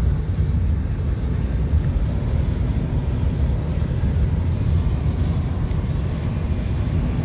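Steady low rumble of semi-truck traffic on the highway.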